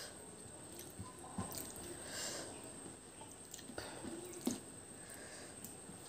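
Fingers squishing and mixing rice with chicken curry gravy on a plate, with chewing: faint, soft wet squelches and small scattered clicks, and a sharper click about four and a half seconds in.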